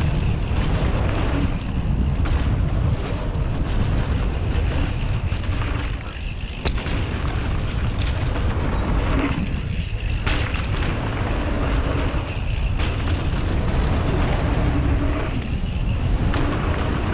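Wind buffeting a helmet-mounted camera's microphone as a mountain bike descends at speed on a dirt trail, over the steady rumble of the tyres, with scattered knocks and rattles from the bike over bumps.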